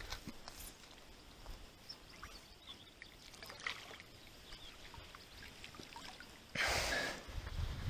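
Water at a pond's edge: small drips and trickles, then near the end a louder swoosh of water lasting about a second as a landing net is swished through the shallows.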